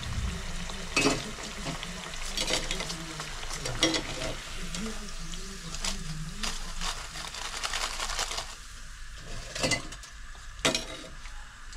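Batter-coated potato slices deep-frying in hot oil, with a steady sizzle. About six sharp knocks of a utensil against the pan break through it as the pieces are stirred.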